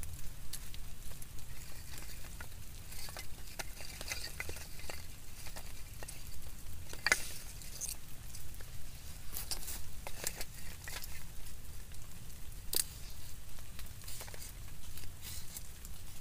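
Rain pattering on a tent and tarp: irregular taps of drops over a steady low rumble, with one sharper tap about seven seconds in.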